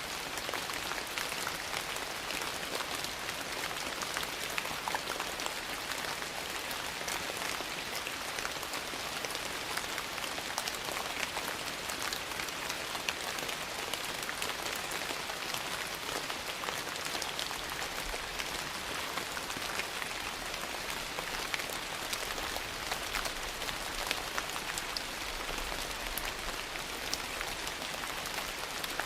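Steady rain falling on a porch, with scattered sharp crackles and pops from a wood fire in a fireplace.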